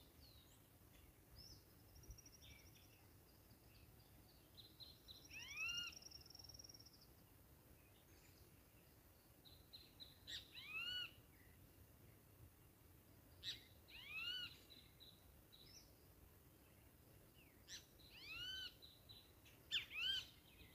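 Faint birdsong: a bird gives short arching calls in about five groups a few seconds apart, with a thin high trill and scattered small chirps between.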